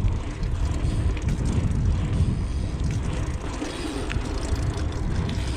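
Dirt jump bike rolling over broken, cracked tarmac, its tyres and frame giving a steady low rumble with scattered small rattles and clicks.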